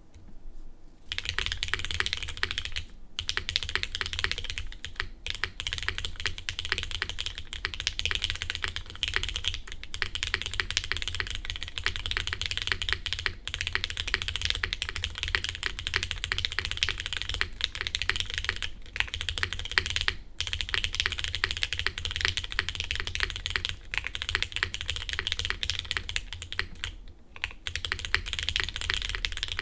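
Continuous fast typing on a Geonworks F2-84 mechanical keyboard with lubed and filmed Cherry MX Black linear switches on a polypropylene plate, GMK keycaps and no case foam. The typing starts about a second in and breaks off briefly a few times.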